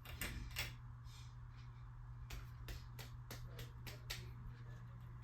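A 42-inch Harbor Breeze Armory ceiling fan running, with a steady low hum and a series of light clicks or ticks, roughly three a second at times.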